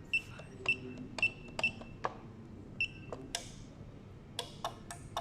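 Garage door keypad buttons pressed one after another, each press giving a click and a short, high beep: five beeps in about three seconds, as in keying a four-digit code and pound. A few more clicks follow near the end.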